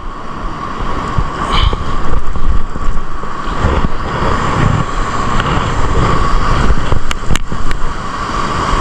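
Wind buffeting the microphone over the steady wash of ocean surf, with a couple of sharp clicks near the end.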